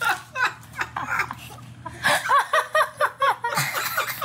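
Laughter: short, quick, high-pitched laughs repeated in a run about two seconds in, with softer laughing before it.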